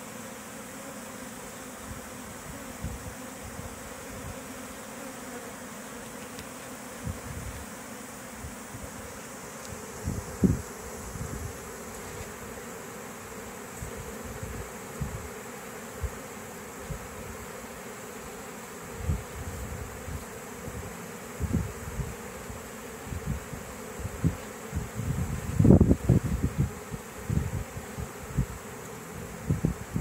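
A swarm of honey bees buzzing with a steady, dense hum as the settled swarm walks into a hive box. Low gusts of wind buffet the microphone now and then, more often in the second half.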